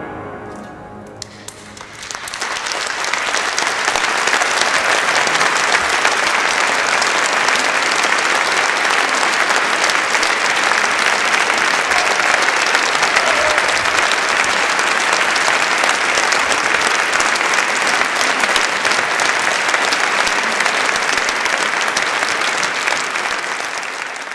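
The last organ chord dies away in the church's long reverberation. About two seconds in, audience applause takes over and goes on steadily until it fades out at the very end.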